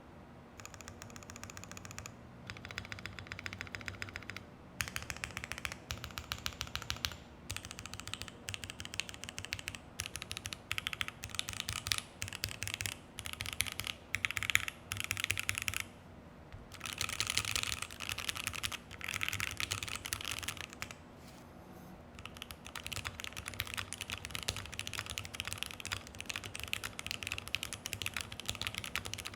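Keychron Q1 mechanical keyboard with an FR4 plate, tape mod, Dogikon switches and ePBT keycaps being typed on in quick runs of clacky keystrokes, with short pauses between runs.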